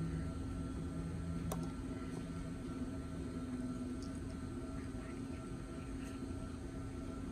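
Steady low background hum with a few constant tones, and a single faint click about a second and a half in.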